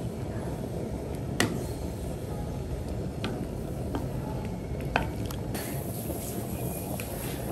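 Water at a rolling boil in a pan around a large sea snail, with a ladle knocking against the pan and shell a few times, loudest about one and a half and five seconds in.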